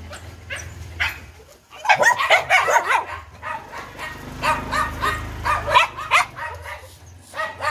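Several young dogs barking excitedly in greeting, a dense run of short, high calls crowding together from about two seconds in and thinning out near the end.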